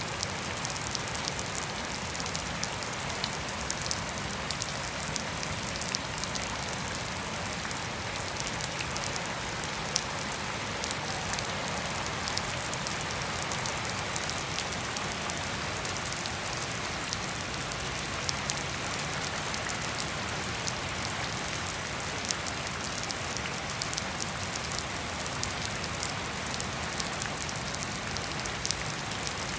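Steady rain falling on wet grass and puddled ground, with no thunder: an even hiss scattered with many sharp close drop ticks.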